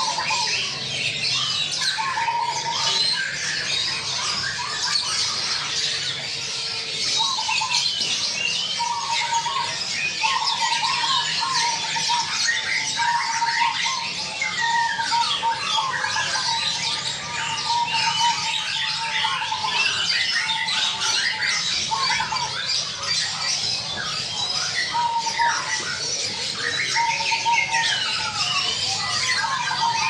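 Zebra dove (perkutut) cooing in repeated short, pulsed phrases, over dense high chirping and squawking from other birds.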